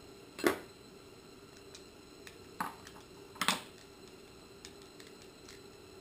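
A few sharp clicks and clinks of a small screwdriver and little screws being handled against a plastic cable-plug base, the strongest about half a second and three and a half seconds in, with fainter ticks between.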